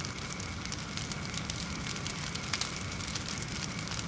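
Forge fire burning with a steady low rumble and frequent sharp crackling.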